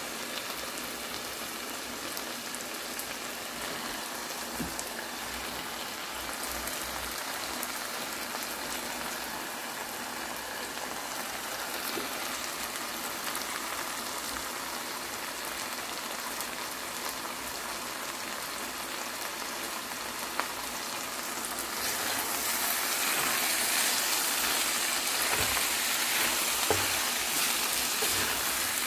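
Eggplant, potato and dried shrimp frying in an aluminium pan, a steady crackling sizzle as the dish browns on turned-up heat at the end of cooking. The sizzle gets louder about three-quarters of the way through.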